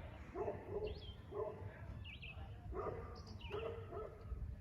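Birds calling over and over: high, quick chirps together with lower, short pitched calls, recurring about once a second.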